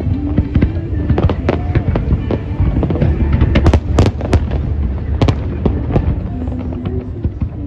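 Aerial fireworks exploding in rapid succession, many sharp bangs and crackles, densest about halfway through, with music playing underneath.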